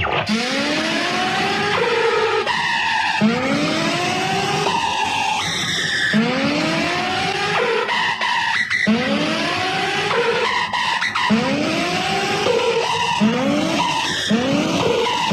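Recorded race-car sound effect played back through a loudspeaker: an engine revving up again and again, a rising whine about every second and a half that comes quicker near the end.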